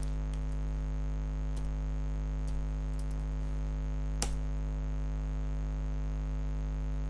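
Steady electrical mains hum, with a few faint clicks of a computer mouse and keyboard and one sharper click about four seconds in.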